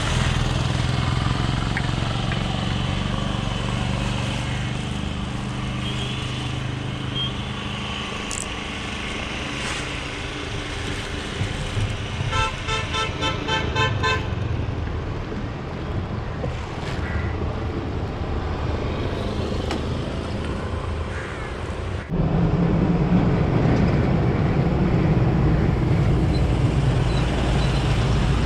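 Vehicle engines running at a hairpin bend, with a quick string of horn beeps about halfway through. About two-thirds of the way in, a heavy multi-axle truck's diesel engine suddenly gets louder as it swings around the bend, and it keeps going to the end.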